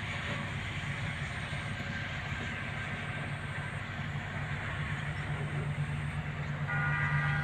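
An engine running steadily, with a short tone near the end.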